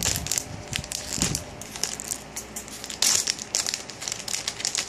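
A squishy toy's packaging being ripped open by hand: crinkling and tearing of the wrapper, with a louder rip about three seconds in.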